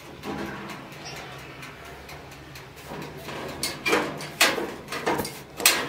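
Metal baking tray clattering and scraping as it is slid onto the rack of a small countertop electric oven, with knocks from the oven's glass door, in a quick run of sharp clatters during the second half.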